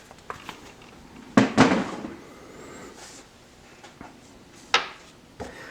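Small objects being handled: two sharp clicks close together about a second and a half in, followed by a brief rustle, and another single click near the end.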